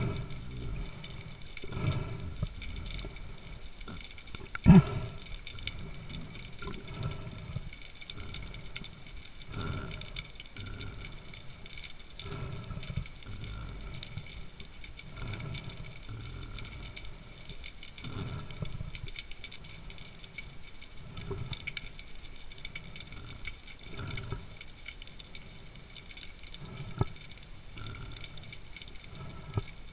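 Underwater water noise on a spearfisher's camera: low swishes of moving water every second or two, with one sharp knock about five seconds in and a smaller one near the end.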